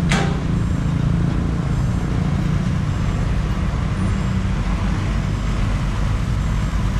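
Excavator's diesel engine running steadily, a low drone with a steady hiss above it.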